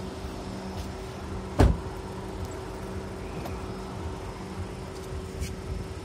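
A car running with a steady low hum, and one loud thump about a second and a half in.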